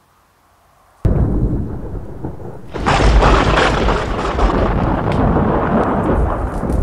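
Thunder: a sudden sharp crack about a second in, then a deep rolling rumble that swells louder about two seconds later and carries on, crackling, to a slow fade.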